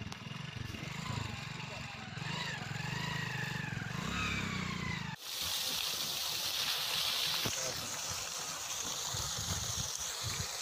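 A low motor-like rumble with some faint calls rising and falling over it, then, from about five seconds in, water gushing out of a pipe into a well with a steady rushing hiss.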